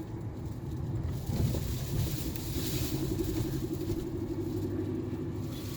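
Mercedes-Benz E200 (W211) being driven over a speed bump: steady road and engine rumble with one soft low thump about a second and a half in. No clunk or creak from the front suspension, whose worn shock absorbers and strut mounts have just been replaced.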